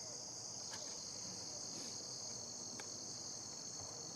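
Steady, high-pitched chorus of insects, with a couple of faint clicks.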